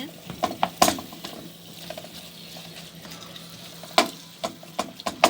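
A spoon stirring zucchini cores frying in oil with garlic and hot pepper paste in a pan, over a low sizzle. The spoon knocks against the pan a few times about a second in, and again several times near the end.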